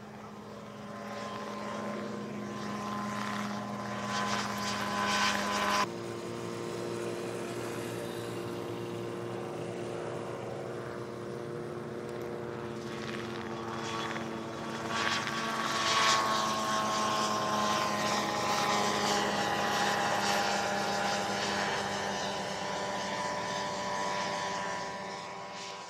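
Mosquito ultralight helicopter's engine and rotor running steadily, growing louder over the first couple of seconds. The sound breaks off abruptly about six seconds in and carries on at a different pitch. After about sixteen seconds its pitch falls slowly.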